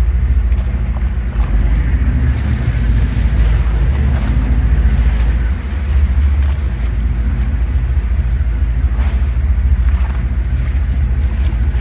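Boat engine running steadily with a low hum, with wind on the microphone.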